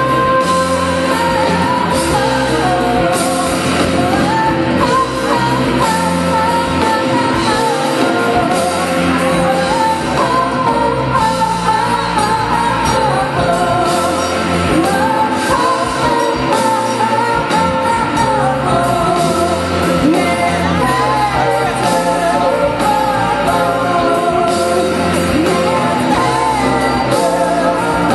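Live amplified rock band playing, with a woman singing lead over electric guitar, bass, keyboard and drums.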